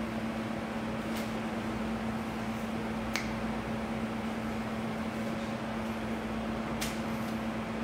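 Steady machine hum with a low, even tone, and three faint ticks spread through it.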